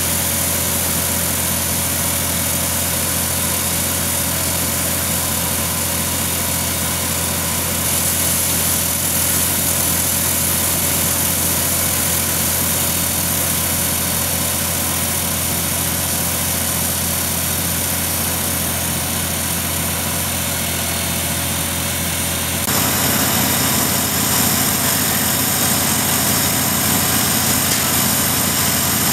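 Tyrolit SK-SD hydraulic wire saw running steadily as its diamond wire cuts through a concrete pier, a continuous mechanical hum. About three-quarters of the way through, the sound shifts abruptly to a lower, rougher drone.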